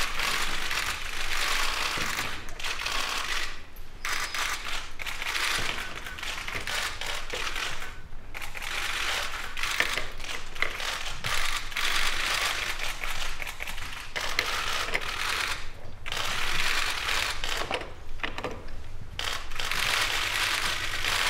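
Many still-camera shutters clicking rapidly together, in runs a few seconds long with short breaks between.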